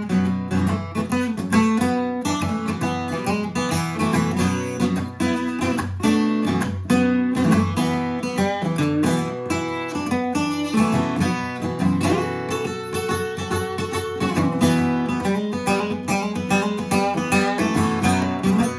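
Instrumental break of a country song: guitar-led band music with a steady beat and no singing.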